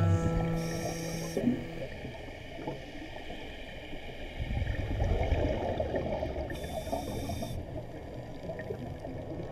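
Underwater sound of a scuba diver breathing through a regulator: a hissing inhale about a second in and again near the three-quarter mark, with a stretch of gurgling exhaled bubbles between them. A guitar music track fades out right at the start.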